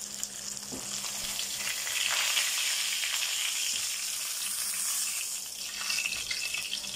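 Whole tilapia frying in hot cooking oil in a pan, sizzling steadily as the fish is turned and lifted with a spatula and slotted spoon. The sizzling grows louder about two seconds in and eases off near the end.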